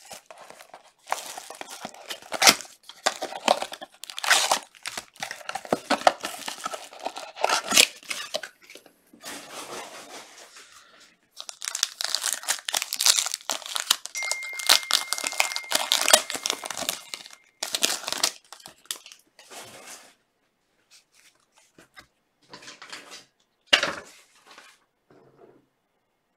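Plastic wrap and foil wrapper of a Panini Obsidian soccer card box being torn open and crinkled by hand, in irregular rustling bursts. The bursts thin out to a few short crinkles after about twenty seconds.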